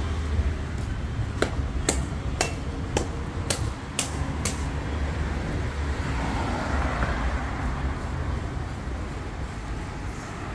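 City street traffic, a steady low rumble of vehicles, with a run of about seven sharp knocks, roughly two a second, in the first half, and the traffic noise swelling briefly past the middle.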